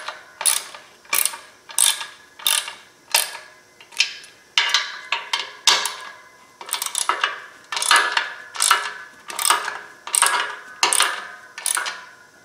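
Hand ratchet wrench clicking in repeated short strokes, about one and a half a second, as it snugs up the clutch pressure plate bolts. Each stroke gives a sharp click with a brief metallic ring.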